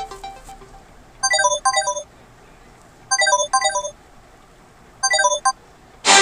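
Samsung Galaxy Tab A ringtone: a short, bright electronic phrase of a few quick notes, played three times with about a second's pause between repeats. At the start the tail of another tune fades out, and right at the end a louder ringtone abruptly begins.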